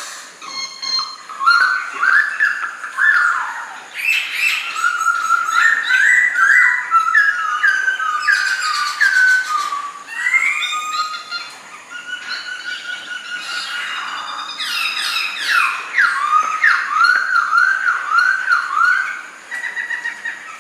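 Khướu mun, a laughingthrush, singing a long, varied song of loud whistled phrases, including runs of quickly repeated sliding notes.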